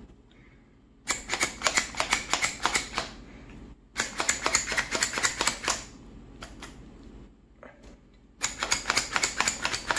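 Hand-pressed plastic garlic and vegetable chopper pumped over and over with a pepper inside, its blades spinning: three runs of rapid clicking, each about two seconds long, starting about a second in, at about four seconds and near the end, with a few single clicks between.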